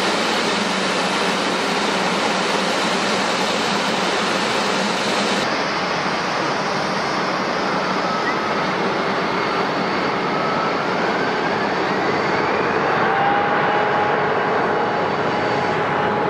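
Steady jet engine noise, then an Embraer E175's twin turbofans at takeoff power on the takeoff roll. About ten seconds in, a whine rises in pitch over a few seconds as the engines spool up, then holds steady over the roar.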